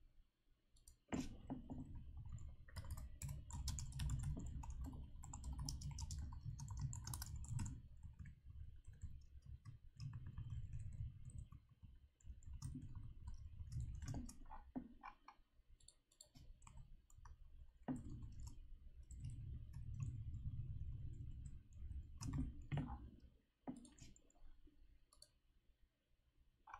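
Typing on a computer keyboard: bursts of key clicks with short pauses between them, over a low rumble.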